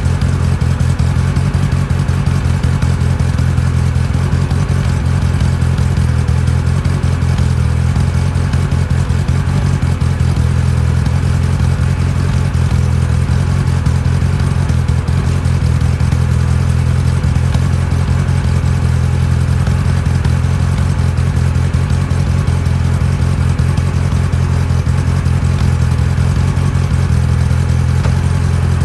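IZh 2126 Oda car engine running steadily at idle with an even, rapid knocking in its beat: the engine knock in question.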